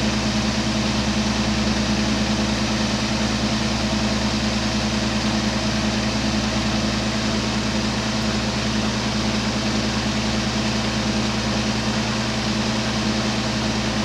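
A glassworking gas torch burning steadily with an even hiss, over a constant mechanical hum.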